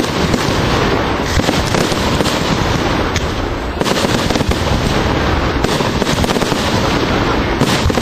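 Fireworks display: a rapid, unbroken barrage of launches and bursting shells with crackling, the bangs running into one another.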